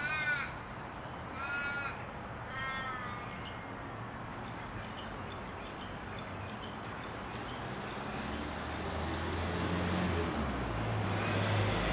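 A bird cawing three times, about a second apart. Faint high chirps follow, then a low rumble grows in near the end.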